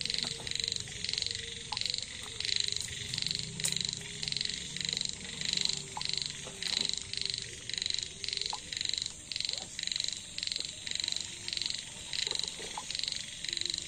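Frog calling in a steady series of short, high-pitched pulses, roughly two to three a second.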